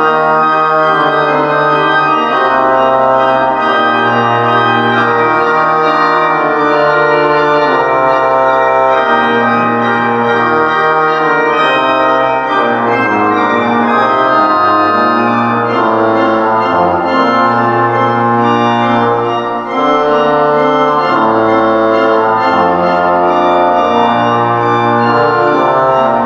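Church organ playing the opening hymn in slow, sustained chords, the harmony and bass notes changing every second or two.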